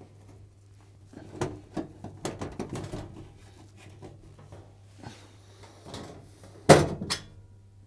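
Phillips screws being undone and pulled from a washing machine's sheet-metal back panel, a run of small clicks and rattles, then two loud sharp knocks near the end as the panel is handled. A faint steady hum lies underneath.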